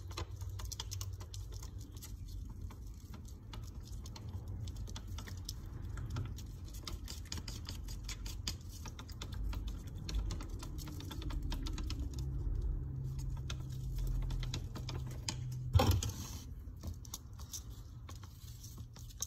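Wooden chopstick stirring an ice-cream mix in a paper cup, making rapid small clicks and taps against the cup's sides, with one louder knock late on.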